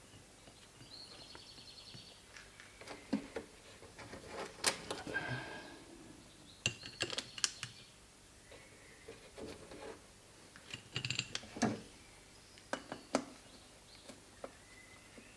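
Scattered small metallic clicks and clinks, the handling of tools and carburettor parts with the engine stopped.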